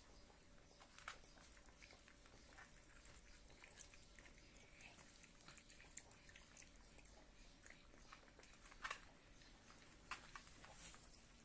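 Faint, scattered crunching and clicking of Scottish terrier puppies eating food from a plastic bowl, with a few slightly louder clicks near the end.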